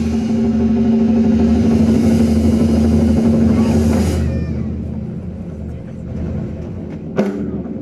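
Zen drumming ensemble's drums in a loud, sustained rumbling roll with a held ringing tone and a high metallic shimmer, which die away about four seconds in. One sharp drum strike follows near the end.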